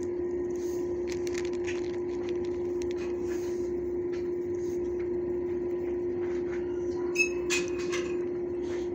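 A steady mechanical hum runs on unchanged, with light rustles and a few sharp clicks, clearest about seven seconds in, as treats are handled from a plastic zip bag.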